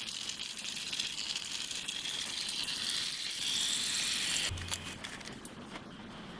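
Break-in oil being drained from a Predator 224cc engine, its drain plug spun out with a Milwaukee cordless tool. A steady hiss grows slightly and cuts off sharply about four and a half seconds in, followed by a brief low hum.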